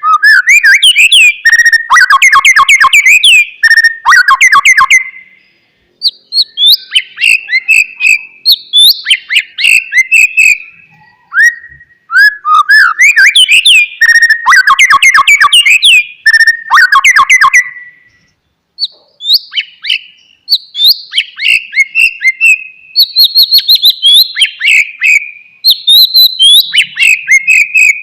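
White-rumped shama (murai batu) singing loudly: fast phrases of varied sliding whistles mixed with rapid clicking, rattling notes, in bursts of a few seconds with short pauses between them.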